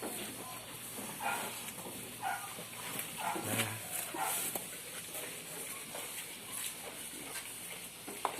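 Goats bleating, a string of short calls about a second apart, over a steady high hiss.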